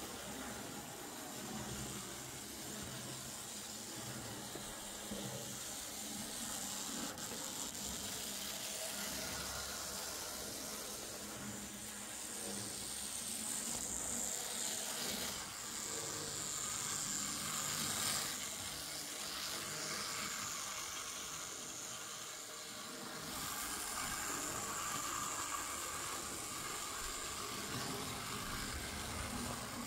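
Tri-ang Stephenson's Rocket OO model locomotive running along the track after repair, its small X500 motor and gearing giving a steady high whir that grows louder and softer as it moves around the layout.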